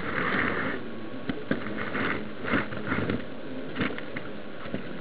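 H0-scale model tram running along the track, heard through a miniature camera riding on it: a steady running hiss broken by irregular clicks and knocks.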